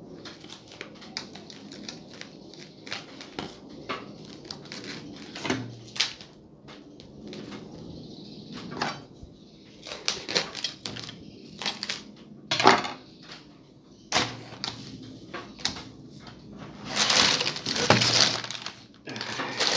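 Plastic cling film crinkling and crackling as it is pulled off the roll and stretched around a glass jar, in short irregular rustles, with a longer, louder rustle near the end.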